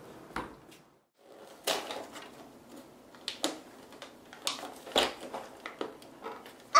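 Gift-wrapped cardboard box being handled and unwrapped: wrapping paper crinkling and tearing, with irregular sharp rustles and knocks.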